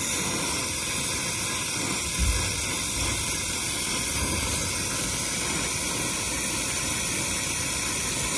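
Brazing torch flame hissing steadily as it preheats a copper refrigerant line joint from below, before the brazing rod is applied. A brief low thump sounds about two seconds in.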